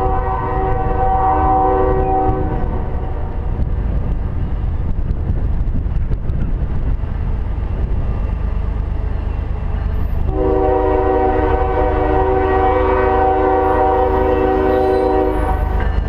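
Multi-chime air horn on the lead locomotive of an approaching Canadian Pacific freight train, CP 8809, a GE ES44AC. It sounds two long blasts: the first ends about two and a half seconds in, and the second starts about ten seconds in and holds for about five seconds. A steady low rumble runs beneath.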